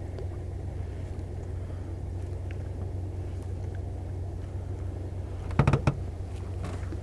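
Steady low rumble, with a quick cluster of three or four loud knocks about five and a half seconds in.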